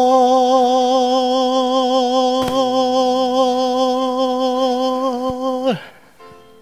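A singer holds the final word 'are' on one long note with steady vibrato over soft instrumental accompaniment. The note ends about five and a half seconds in, leaving only a quiet sustained accompaniment chord.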